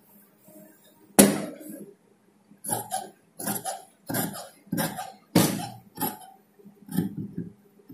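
Tailor's shears cutting through cloth in a run of short, regular snips, about two to three a second, starting a little after two and a half seconds in. A single sharp click comes about a second in.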